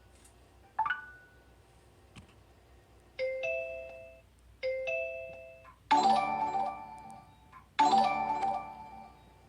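Phone notification alert tones played one after another: a short single ding, then a two-note chime sounded twice, then a louder, fuller chime sounded twice, each starting sharply and fading out.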